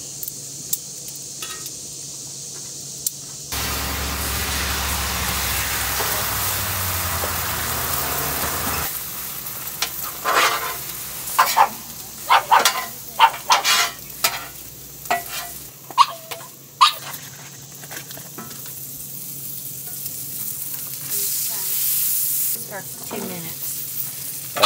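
Bacon sizzling on a Blackstone flat-top griddle. The sizzle grows louder about three and a half seconds in, and a run of short, sharp scrapes and clinks comes about halfway through.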